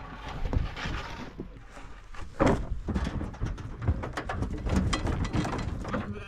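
Sheep hooves clattering and knocking on a livestock trailer floor as the flock crowds out of the trailer, in quick irregular steps, with one louder clatter about two and a half seconds in.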